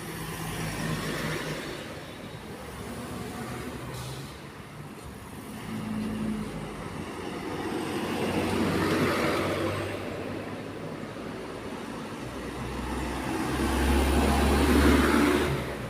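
Traffic on a busy road: vehicles passing one after another, each swelling and fading away. The loudest pass comes near the end, with a deep engine rumble.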